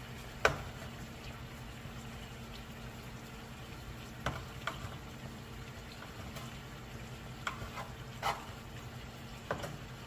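Lobster tails frying in a pan, with a steady low sizzle. Metal utensils clink and scrape against the pan about six times, the loudest clink about half a second in.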